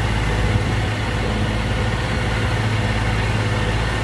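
Outboard motor running steadily, pushing a small aluminium boat along, with a steady low hum and no change in speed.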